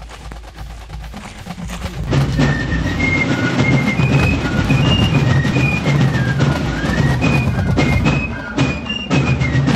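Fife and drum corps playing: a high fife melody of short held notes over snare and bass drum strokes, coming in loudly about two seconds in.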